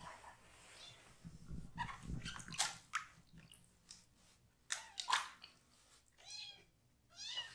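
Very young kitten mewing several times in short, high, wavering cries while being held and having its hindquarters washed, with a few handling clicks and rustles in between.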